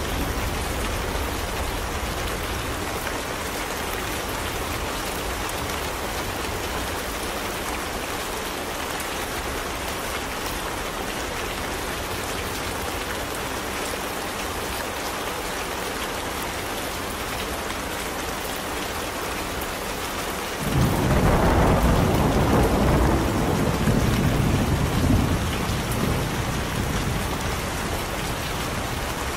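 Steady heavy rain, with a roll of thunder that breaks in suddenly about two-thirds of the way through and rumbles on for several seconds before fading back under the rain.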